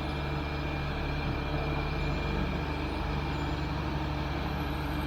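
Diesel engine of heavy equipment running steadily at low speed, a constant low hum with no change in pitch.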